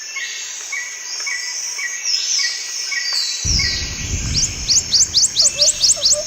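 Several birds chirping and calling, with repeated short notes and falling whistles, then a quick run of rising chirps near the end. A low rumble comes in about halfway through.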